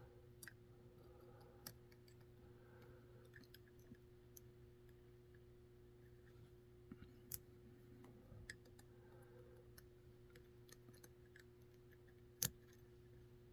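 Faint, sparse small clicks and ticks of tiny lock pins and the cylinder being handled while a Master Lock deadbolt is repinned, with one sharper click near the end, over a steady low hum.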